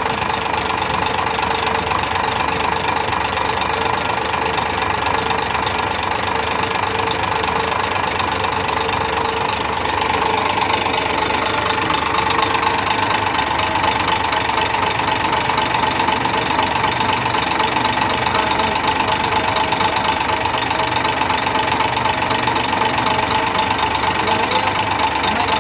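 A diesel dump-truck engine idling with a steady knocking clatter while cylinder number 3's injector is cut out, part of a one-cylinder-at-a-time test to find the cylinder that causes the knock. About ten seconds in, the engine note shifts and gets slightly louder.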